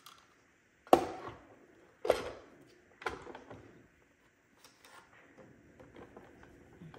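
Three hard plastic knocks about a second apart as the top cover of an iRobot Braava 380t robot mop is pushed down onto its base, then faint rubbing of a tissue over the plastic shell.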